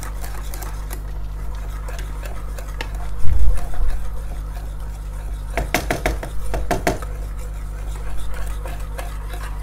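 Stirring a thickening béchamel sauce in a saucepan: a quick run of scraping strokes of the utensil against the pan a little before the seventh second, and a dull thump a little after the third second, over a steady low hum.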